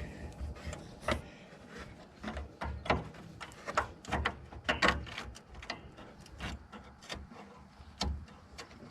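Irregular light metallic clicks and taps as the mounting bolts of a replacement car hood latch are started by hand.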